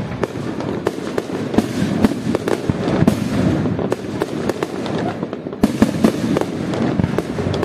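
Fireworks display: aerial shells bursting in quick succession, many sharp bangs a second over a continuous low rumble.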